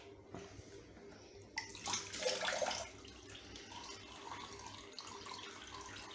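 Water splashing in a plastic basin as a soaked English Angora rabbit is handled and lifted out. It is loudest for about a second and a half around two seconds in, then softer, with water dripping off the fur back into the basin.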